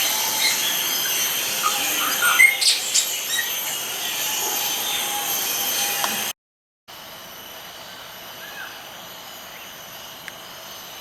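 Birds chirping in short calls over a steady high-pitched background drone. Just past halfway the sound cuts out for half a second, then the drone resumes quieter with only a stray chirp.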